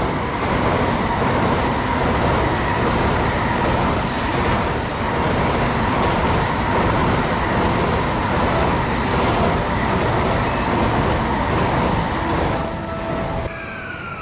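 Electric commuter train running past: steady rumble of wheels on rail with a steady whine, dropping off sharply near the end.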